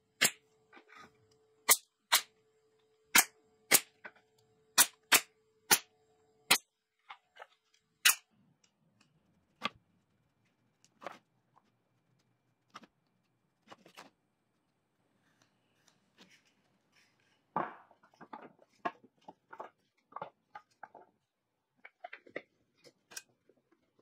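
Nail gun firing nails into the ends of small wooden trays: about ten sharp shots, spaced half a second to a second apart, over the first eight seconds. After that come only quieter scattered taps and rustles of hands working small wooden pieces on the bench.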